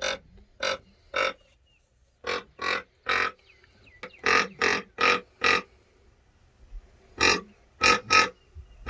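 An animal giving a series of short, harsh calls, about a dozen in all, in groups of three or four with short pauses between the groups.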